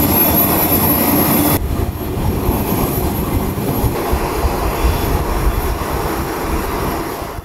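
Boeing C-17 Globemaster III's four turbofan engines running, a steady low rumble with a high thin whine over it. The sound changes abruptly about a second and a half in, then carries on as a rumble and fades out near the end.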